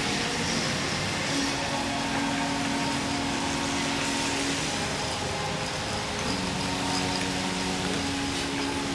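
Several cars driving slowly past on a wet street: steady engine hum and tyre noise on the wet road, with hum tones changing as one car follows another.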